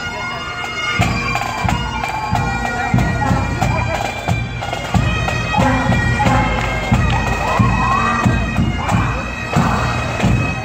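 Pipe band playing: Highland bagpipes sounding steady drones under the chanter melody, over a regular bass drum beat.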